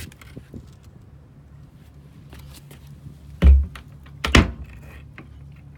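Two heavy thunks less than a second apart, the first the louder: the fibreglass anchor-locker lid on a motor yacht's foredeck being dropped shut.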